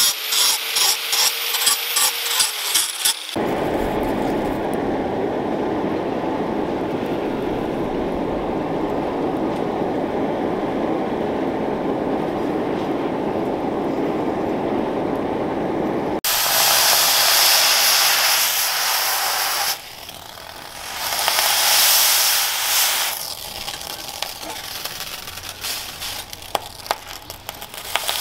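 An angle grinder cutting steel in short pulsing strokes for the first three seconds, then the steady rushing noise of a charcoal forge fire heating a machete blade. From about halfway, loud hissing of the red-hot blade being quenched in water, coming and going in spells.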